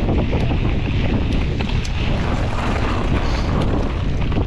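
Wind buffeting the microphone of a camera on a mountain bike riding at speed, over a steady low rumble of tyres on tarmac and gravel, with scattered sharp clicks and rattles.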